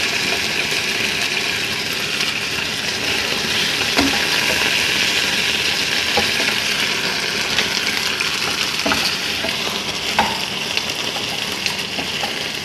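Parboiled chicken pieces sizzling as they fry in olive oil in a frying pan, the browning stage of adobo before the braising liquid is poured back in. A steady hiss, with a few sharp knocks as a wooden spatula turns the pieces against the pan.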